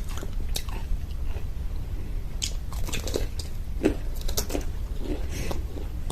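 Someone biting and chewing a crunchy homemade samosa, with irregular crisp crunches from the fried pastry shell.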